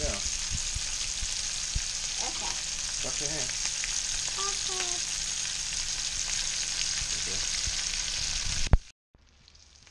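Breaded redfish pieces frying in hot oil in a skillet: a steady hissing sizzle. It cuts off abruptly with a click near the end and comes back much fainter.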